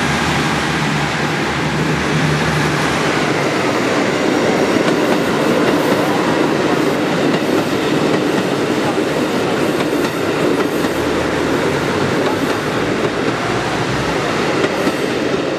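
JR Central Kiha 85 diesel express train running past, its engines and wheels making a loud, steady rumble with clickety-clack over the rail joints.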